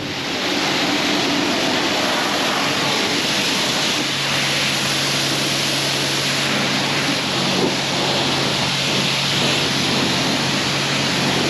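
Steady, loud rushing noise, with a low steady hum joining about four seconds in.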